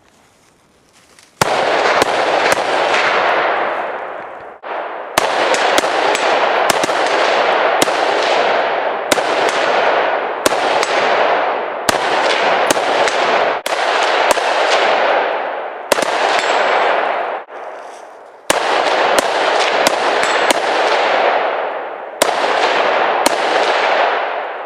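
AR-style rifles firing a rapid, uneven string of shots, often one or two a second and sometimes closer, each crack followed by a long fading echo. There are two short pauses, and the firing starts about a second and a half in.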